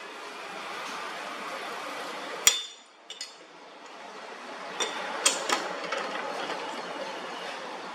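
Metal striking metal in a workshop: one sharp ringing strike about two and a half seconds in, then several lighter clinks around five seconds, over a steady noise.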